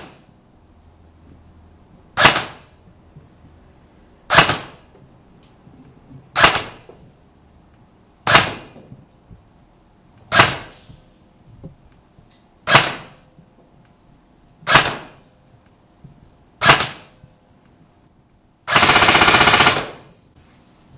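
Tokyo Marui FA-MAS 5.56-F1 electric airsoft gun firing 0.2 g BBs through a chronograph for a velocity test: eight single semi-auto shots about two seconds apart, each a sharp crack of gearbox and piston. Near the end comes a full-auto burst of about a second and a half, at around 1000 rounds a minute.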